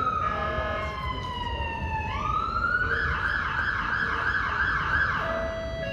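Emergency vehicle siren going by: a slow wail falling in pitch, then about two seconds in it rises and switches to a fast warbling yelp, which stops about five seconds in.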